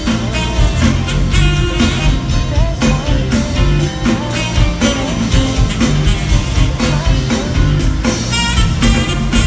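Live smooth-jazz band playing a groove: drums, bass, keyboards and electric guitar, with a saxophone lead melody on top.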